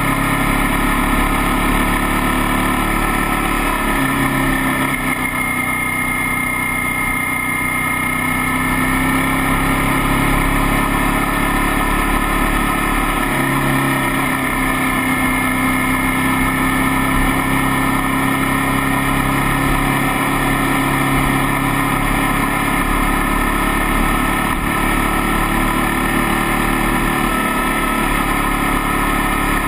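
Motorcycle engine running while riding at road speed. Its pitch drops and rises again a few times.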